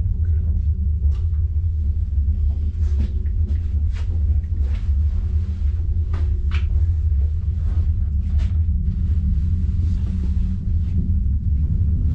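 Steady low rumble inside an aerial cable car cabin as it runs along its cables, with a light click or knock every second or so.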